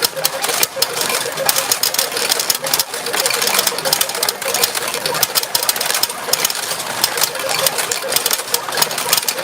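Retro pachinko machine in play: steel balls firing and rattling down through the pins in a dense, continuous clatter of fine metallic clicks.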